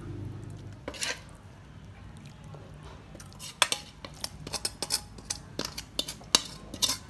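A cooking utensil scraping and clinking against the wok and the steel serving plate as fermented soybean sauce is spooned over fried fish. One sharp clink comes about a second in, then a quick run of clinks and scrapes from about halfway on.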